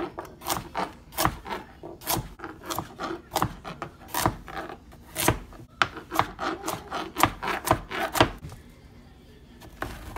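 Chef's knife chopping whole carrots on a plastic cutting board: quick, irregular knocks of the blade through the carrot onto the board, about three a second, stopping about eight seconds in.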